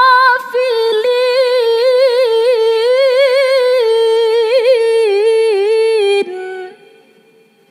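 A woman's voice reciting the Quran in the melodic tilawah style, unaccompanied: one long drawn-out phrase full of quick wavering turns. It breaks off about six seconds in, with a short lower note before it falls quiet.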